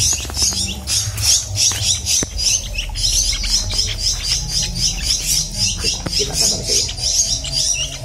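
Caged young songbirds chirping continuously in quick, high-pitched repeated calls, several a second.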